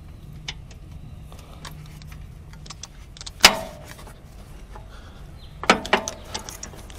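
Metal clinks of a ratchet, long extension and spark plug socket being worked down onto a spark plug in the cylinder head of a Subaru EJ20 boxer engine. Scattered light ticks, a sharp ringing clank about three and a half seconds in, and a few more ringing clinks near the end.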